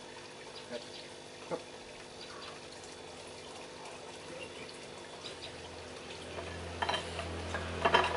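Soft, wet, sticky handling sounds of fingers packing chili-and-herb paste into a catfish, with a few small clicks. A low hum comes in about six seconds in, and a couple of sharper knocks follow near the end.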